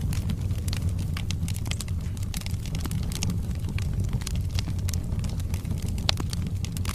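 Wood fire burning in a fireplace: a steady low rumble of flames with irregular sharp crackles and pops from the burning logs, one louder pop about six seconds in.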